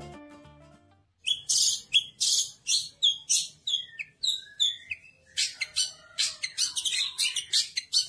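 Long-tailed shrike (cendet) singing: a run of short, harsh, scratchy calls, about two a second at first, then coming faster and denser about five seconds in.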